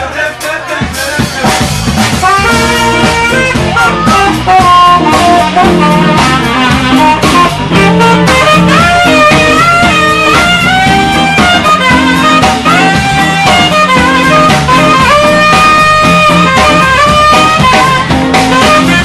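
Live band playing: a saxophone plays a melodic solo line, coming in about two seconds in, over a drum kit and electric guitar.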